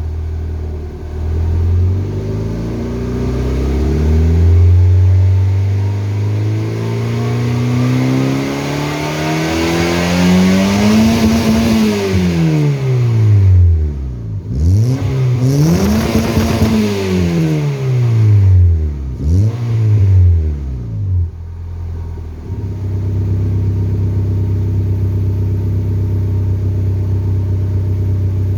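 Honda Civic LX's stock 1.7-litre D17 four-cylinder engine and exhaust being revved. The first rev climbs slowly for several seconds and drops back. Two quicker blips follow, then the engine settles to a steady idle.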